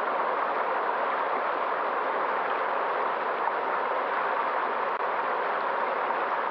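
Flowing river water, a steady unbroken rush.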